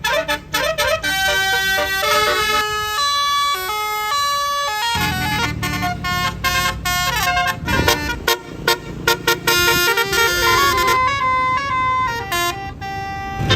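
Basuri telolet bus horn playing a melody in quick stepped notes, with a low rumble joining about five seconds in.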